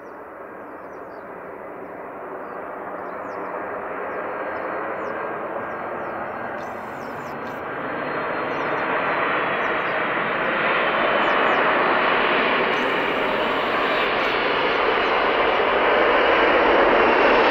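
Boeing 747's four jet engines at take-off power, a steady jet noise that grows louder throughout as the aircraft comes closer.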